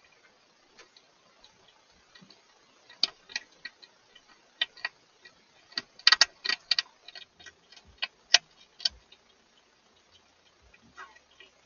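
A hedgehog chewing food at a feed bowl inside a plastic feeding box: irregular sharp clicks, a dense run of them about six seconds in and a loud one just after eight seconds.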